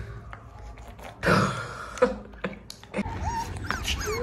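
Young puppy whimpering: a few short, high, squeaky cries that rise and fall in pitch in the last second or so, after a brief noisy rustle.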